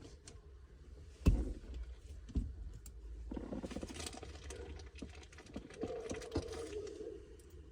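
Hands working plastic console trim and shifter parts: scattered light clicks and taps, one sharper knock about a second in, then a stretch of rustling and scraping from about three seconds on.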